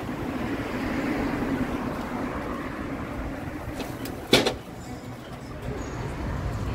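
Street traffic going by: the noise of a passing vehicle swells about a second in and slowly fades. A single sharp knock sounds about four seconds in.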